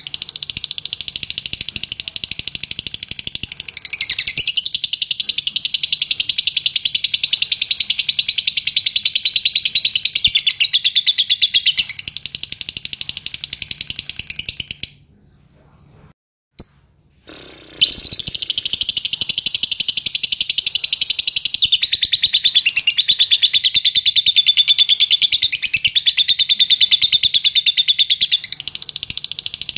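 Fischer's lovebird chattering in a long, rapid, high-pitched trill, the continuous song that Indonesian bird keepers call latah. The chatter stops for about three seconds midway, then starts up again and carries on unbroken.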